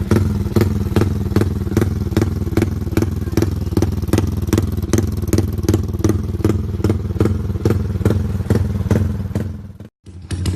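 Modified Yamaha 150 cc single-cylinder motorcycle with an aftermarket exhaust, running steadily at idle with a regular loping beat about four times a second. It fades out and cuts off shortly before the end, and another motorcycle engine follows right away.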